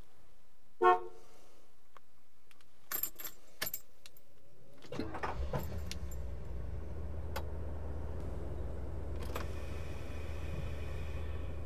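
A short loud tone about a second in, then keys jingling at the ignition of a 1971 Mercury Marquis Brougham, heard from inside the cabin. About five seconds in, its 429 cubic-inch two-barrel V8 is started with a few uneven bursts, then settles into a steady low idle.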